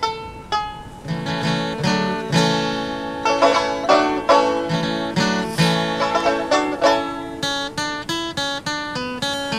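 Bluegrass-style banjo music with quick plucked notes. A single melodic line fills out into chords, with lower notes joining, about a second in.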